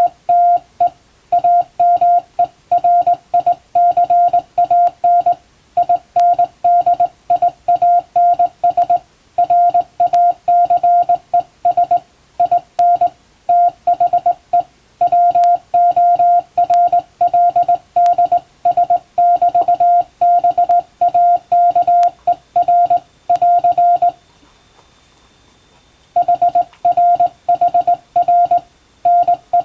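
Morse code sent by hand on a straight telegraph key, heard as a steady mid-pitched beep keyed in dots and dashes, with a pause of about two seconds near the end.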